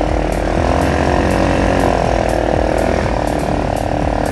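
ATV engine running steadily as it is driven over a muddy trail, its pitch wavering slightly about halfway through; the engine sound drops away abruptly at the very end.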